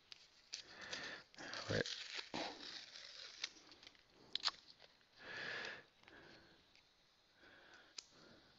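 Paper rustling and crackling as stickers are peeled off their backing sheet, with a few sharp clicks. About five seconds in there is a short loud sniff.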